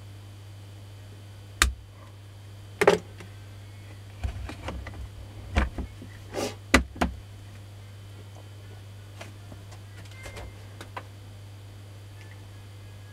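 Clicks and knocks of a screwdriver and the opened plastic and metal housing of a Makita 9237CB being handled on a workbench: a handful of sharp clicks and knocks between about two and seven seconds in, a few faint ones later, over a steady low hum.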